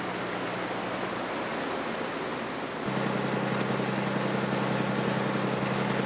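Fishing boat's engine running steadily under way, a low even hum over the rush of water along the hull. The engine hum gets louder about three seconds in.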